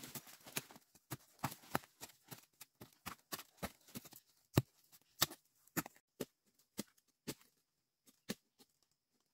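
Short-handled hoe chopping into loose forest soil and leaf litter while digging for bamboo shoots: a run of irregular dull strikes about two a second with some rustling of leaves between them, thinning out and stopping near the end.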